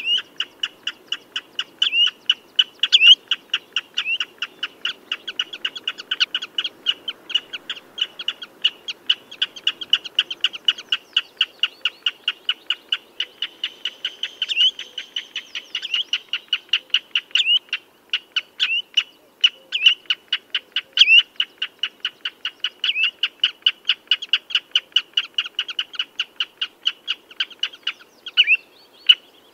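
Common redshank calling: a steady rapid run of short, sharp, piping notes, several a second, with some louder notes standing out now and then.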